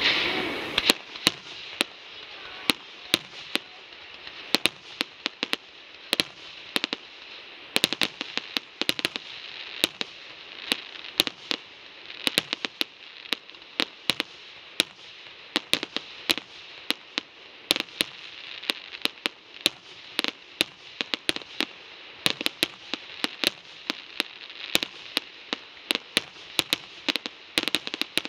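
Aerial fireworks shells bursting in a rapid, irregular string of sharp bangs, several a second, over a steady crackling hiss.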